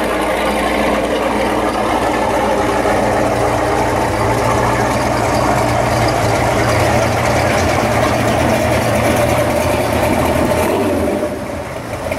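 V8 exhaust of classic muscle cars rumbling steadily as they cruise slowly past at low revs, the closest a 1966 Pontiac GTO with its 389 V8; the sound eases off a little near the end as it moves past.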